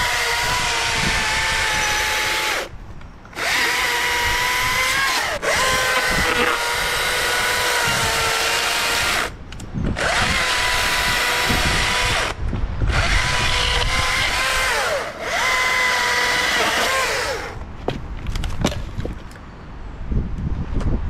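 STIHL MSA 220 C battery chainsaw running at full speed with a high, steady electric whine, its pitch sagging at moments as the chain bites into wood. It stops briefly three times and cuts out near the end, leaving scattered knocks and rustling.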